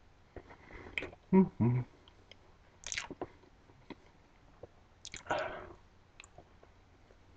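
A person chewing mouthfuls of banana: wet chewing sounds come in a few short spells, the loudest a pair of short sounds about a second and a half in.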